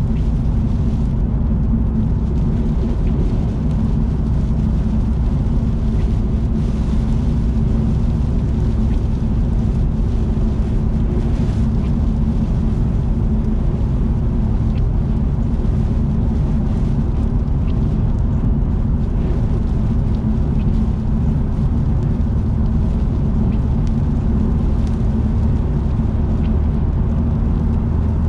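Car driving at expressway speed, with a steady low drone of tyre and engine noise. A few faint ticks sound here and there.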